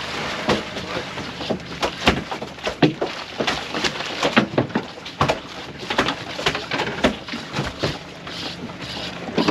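Irregular knocks, taps and splashing aboard a small fishing boat at sea, several a second, over a faint steady low engine hum.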